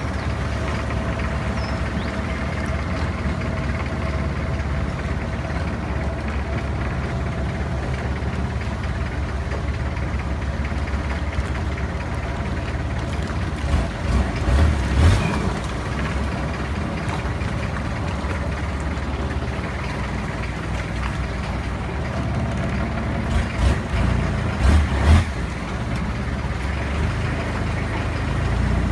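Engine of a Thai long-tail boat running steadily while the boat cruises along a canal. There are two brief stretches of louder low thuds, one about halfway through and one near the end.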